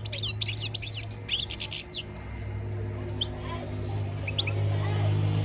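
European goldfinch singing a rapid twittering phrase for about two seconds, then giving a few single chirps. A steady low hum runs underneath.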